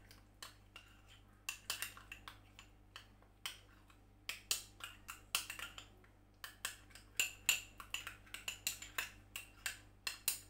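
A spoon stirring a thick paste of grated tomato, oats and yogurt in a small glass bowl, clinking against the glass in quick, irregular ticks that come thicker in the second half.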